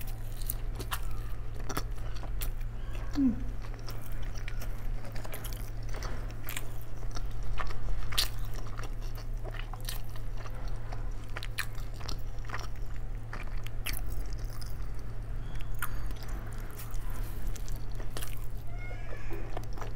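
Close-miked eating sounds: bites and chewing of flatbread with paneer curry, with many small mouth clicks and smacks scattered throughout, over a steady low hum.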